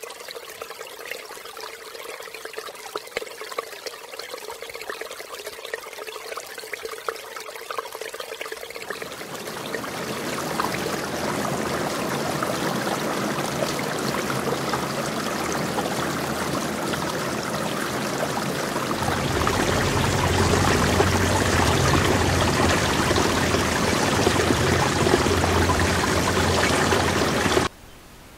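A steady rushing, water-like noise that grows louder in two steps, with a low rumble joining underneath about a third and two thirds of the way through, then cuts off suddenly just before the end.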